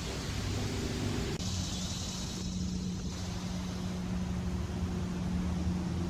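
Steady low drone of motor traffic, a vehicle engine hum whose pitch shifts about a second and a half in.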